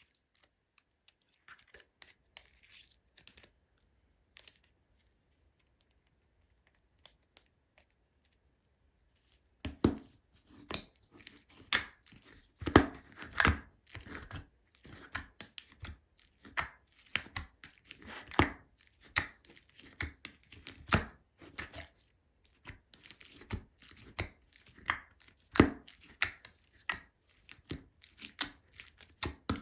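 Aurora slime being handled: a few faint clicks at first, then from about ten seconds in a steady, irregular run of sharp sticky clicks and pops as it is squeezed and stretched.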